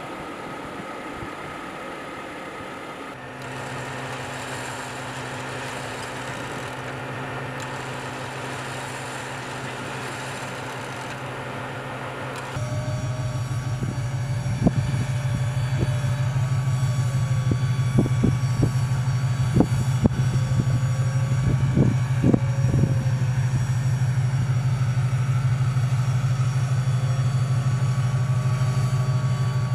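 Off-road vehicle crawling up rock: a steady low motor hum that gets much louder about twelve seconds in, with a run of sharp knocks and clunks in the middle.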